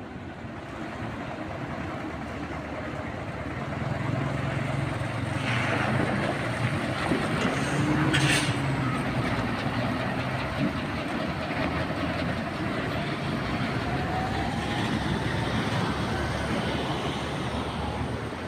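Outdoor roadside vehicle noise: truck and traffic engines running with a low steady hum, and a short hiss about eight seconds in.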